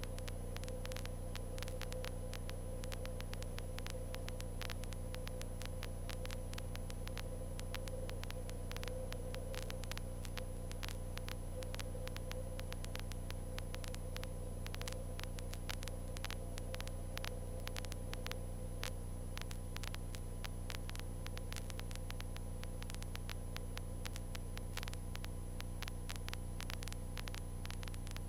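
Steady low drone and hum inside a 1978 Cessna 152 in flight, picked up through the cockpit audio, with frequent faint crackles of static over it.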